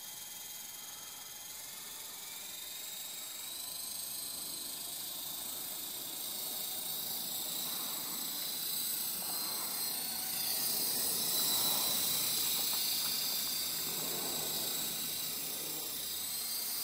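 Electric RC model helicopter running: a high motor whine with rotor hiss as it lifts off and climbs. The sound grows steadily louder, peaking about eleven seconds in.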